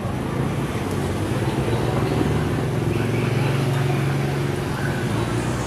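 A steady low engine hum among street noise, with faint voices in the background.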